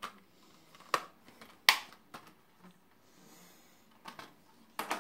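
Clear plastic Blu-ray case being handled and closed: a series of sharp plastic clicks and snaps, the loudest a little under two seconds in, with a quick cluster of clicks near the end.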